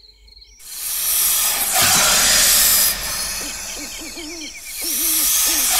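Night sound effect played over the auditorium speakers: a loud rushing hiss like wind swells up about half a second in, with faint high chirps. An owl hoots repeatedly near the end.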